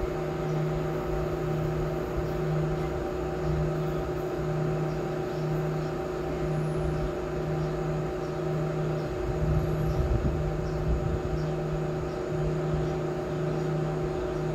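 A steady mechanical hum with a lower tone that pulses on and off about once a second, and a brief low rumble about ten seconds in.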